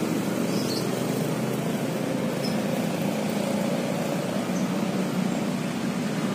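Steady, even rumble of road traffic, with no single vehicle standing out.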